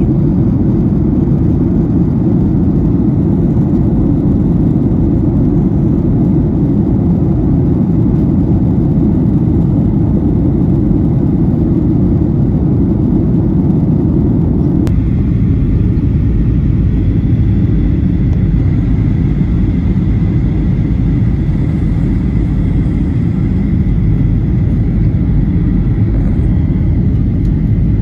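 Jet airliner cabin noise: a steady low rush of engine and airflow. About halfway through, the upper part of the noise drops a little, leaving a faint steady high tone over the low rush.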